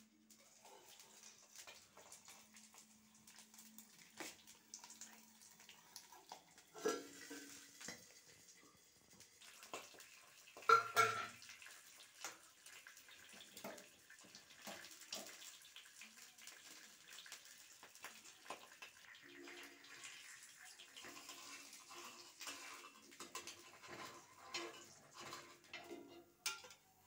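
Cookware clinking and scraping: a steel lid and a spatula knocking against a flat iron griddle on a gas stove, with two louder clanks in the first half, over the faint hiss of an egg frying.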